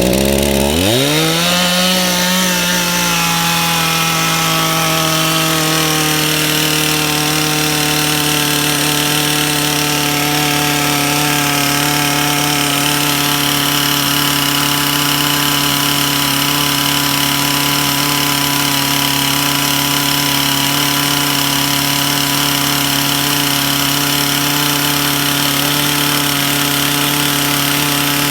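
Stihl two-stroke chainsaw engine, just started, picking up speed in the first second and then running steadily at a high, even speed. It is held at the fast-idle starting setting, with the trigger and throttle lock pushed down.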